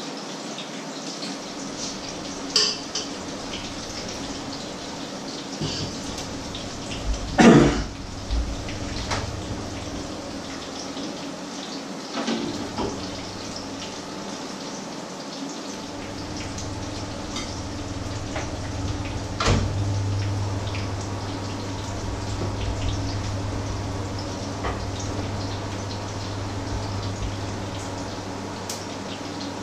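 Patties frying in oil in two pans, a steady sizzle with small crackles. Utensils clatter now and then, loudest about seven seconds in, and a low hum joins about halfway through.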